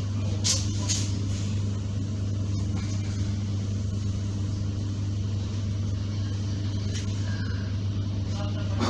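Steady low electrical hum inside a stationary ER9P electric train car, from its onboard AC equipment, with a couple of light clicks about a second in.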